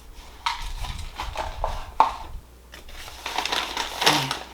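Paper fast-food bag and wrappers rustling and crinkling as they are handled, with a few sharper crackles.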